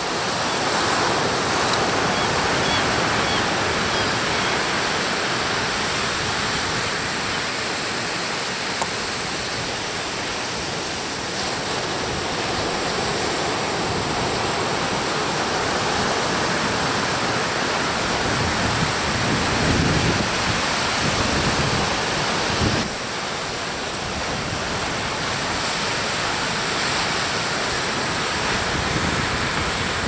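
Heavy surf breaking and washing over a cobble beach, a steady loud rush, with wind buffeting the microphone a few times past the middle.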